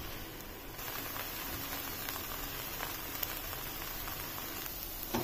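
Soft, steady sizzling of puffed-rice upma (uggani) in a kadai over a low flame, heating until it steams.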